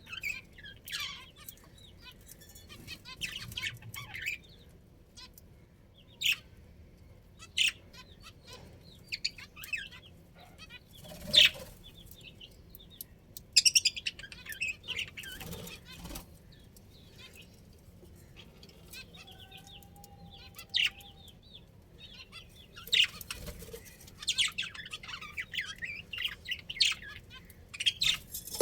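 Budgerigars chirping and chattering in irregular bursts of short, high notes, with a few brief, louder wing flutters in between.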